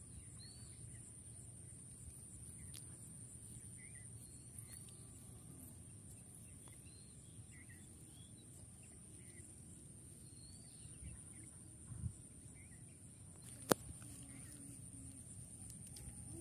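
Faint outdoor ambience: short bird chirps come and go over a low rumble, with a steady high-pitched insect whine throughout. A dull thump comes about twelve seconds in, and a single sharp click near the end is the loudest sound.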